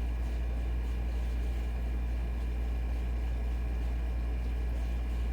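Air conditioner running: a steady low hum with a faint, even high whine.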